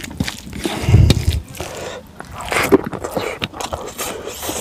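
Eating rice by hand from a steel plate: fingers scraping and squishing rice against the metal, then lifting a handful to the mouth, heard as a string of short scrapes, clicks and mouth smacks with a dull thump about a second in.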